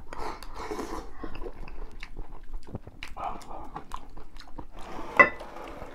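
People chewing and crunching food close up while eating, with small irregular clicks of chopsticks against ceramic bowls and one sharper click near the end.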